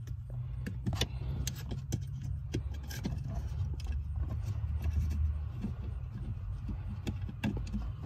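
Scattered light clicks and rattles of a plastic brake light switch being worked into place on the brake pedal bracket, over a steady low hum.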